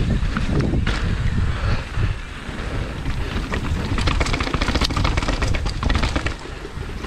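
Mountain bike ridden over rough ground, heard from a GoPro: heavy wind rumble on the microphone with a constant crackle and clatter from the tyres and the bike, easing briefly about two seconds in.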